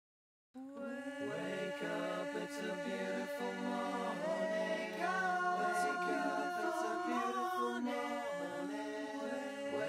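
Background music of several voices singing together in sustained harmony, a cappella. It starts about half a second in.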